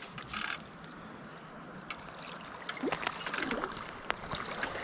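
Shallow river water trickling and flowing, with a few light splashes and ticks scattered through it.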